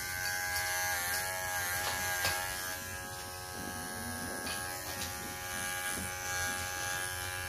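Electric pet grooming clippers buzzing steadily as they shave a young poodle puppy's neck fur, the pitch dipping briefly a couple of times as the blades pass through the coat.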